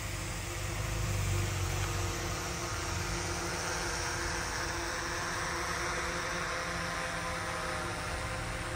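Komatsu D20P crawler dozer's diesel engine running steadily as the machine works loose dirt with its blade.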